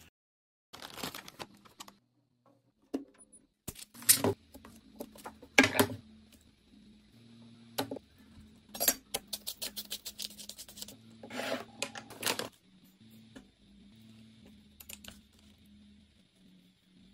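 Kitchen food-preparation sounds: scattered sharp clicks, taps and knocks of utensils, glassware and a cleaver on a wooden cutting board, coming in short clusters with a quick run of ticks in the middle, over a faint steady hum.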